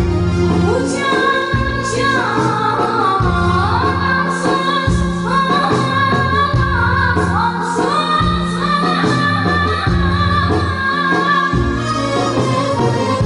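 A child's high voice singing a Turkish arabesk-style song, with ornamented, sliding vocal lines over instrumental backing and a steady, repeating bass beat.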